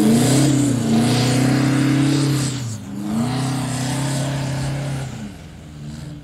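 Toyota Hilux's 2.4-litre four-cylinder turbodiesel revving hard under load as the pickup powers up a soft sand dune. The revs drop briefly about three seconds in, pick up again, then fade near the end as it climbs away.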